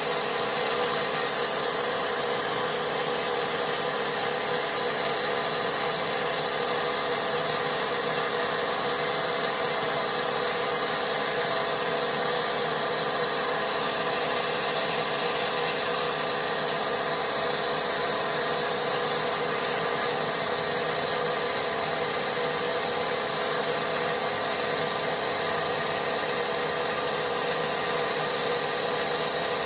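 Vapor blasting cabinet running: a jet of compressed air and wet abrasive spraying continuously against Suzuki New Shogun engine parts, a steady, even noise with no breaks.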